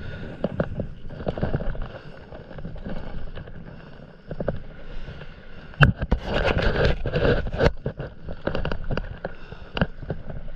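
Stand-up paddle strokes dipping and splashing in calm sea water beside the paddleboard, with irregular knocks and one sharp loud knock about six seconds in, followed by a busier stretch of splashing.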